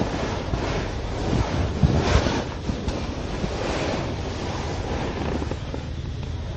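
Wind buffeting the microphone, with a steady low rumble underneath; the wind swells louder about two seconds in.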